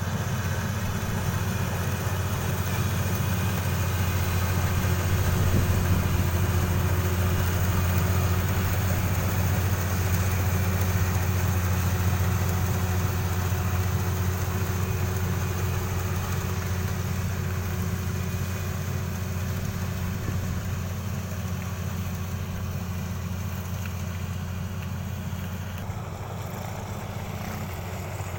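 Kubota DC 35 combine harvester's diesel engine running steadily with a low drone. It grows a little louder over the first few seconds, then slowly fades.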